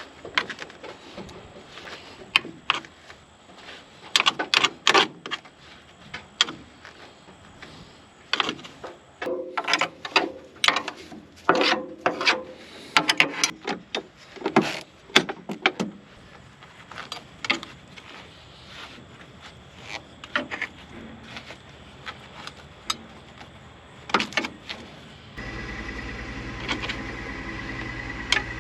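Scattered knocks and clatter of handling and movement around a vehicle. About 25 seconds in, a steady engine hum comes in, with a steady high tone over it.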